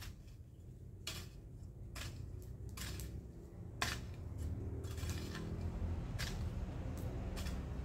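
A long-handled garden tool striking and scraping dry soil in irregular strokes, roughly one or two a second, the loudest about four seconds in.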